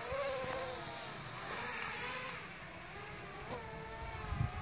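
FPV quadcopter's motors and propellers buzzing, the pitch rising and falling as the throttle changes. A low buffeting rumble comes in near the end.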